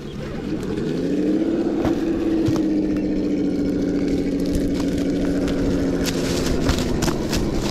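An RC crawler's electronic engine-sound kit (Sense Dual ESS) plays a simulated engine through its small speaker. It revs up over the first second or so, holds a steady drone under throttle, and eases back near the end. A few sharp clicks come near the end.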